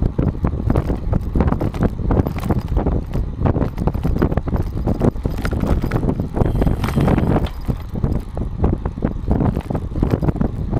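Road bicycle rolling over cracked asphalt, heard from a camera mounted under the saddle: a dense, steady rattle of road vibration and tyre noise over a low rumble, with some wind on the microphone.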